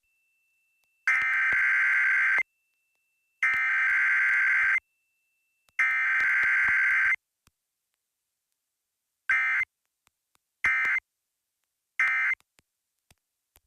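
Emergency Alert System SAME data bursts, the screeching digital header tones sent three times over at about a second and a half each, then three short end-of-message bursts. A Required Weekly Test coded with no attention tone and no voice message between header and end-of-message.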